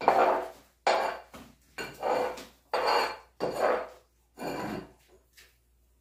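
A run of five clattering knocks about a second apart, each dying away quickly, from objects being handled at a wood-burning stove being cleared of ash and readied for lighting. The knocks stop about five seconds in.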